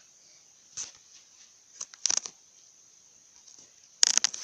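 Faint clicks from handling plastic wall light switches, including a quick double click about two seconds in, then louder rustling handling noise near the end.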